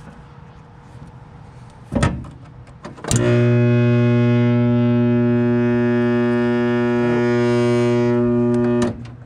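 A click, then power is applied and a seized electric motor hums loudly and steadily for about six seconds without turning over, before cutting off suddenly. The steady hum with no start-up is the sign of a locked rotor: the motor is seized despite being oiled.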